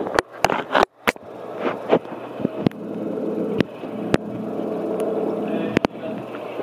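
Handling noise of a handheld camera: scattered sharp clicks and knocks, with brief dropouts near the start, over a steady low hum.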